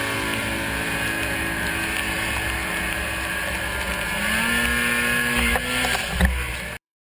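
Yamaha Enticer two-stroke snowmobile engine running under way, its pitch rising about four seconds in as it speeds up. A thud a little after six seconds, then the sound cuts off abruptly.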